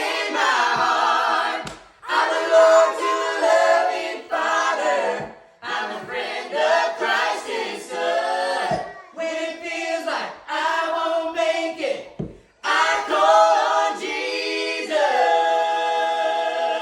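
A small group of voices singing gospel a cappella in close harmony, in phrases broken by short breaths, ending on a long held chord.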